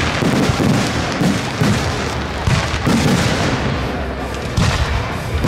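Fireworks display: aerial shells bursting in quick succession, a dense run of booms and crackling with no pause.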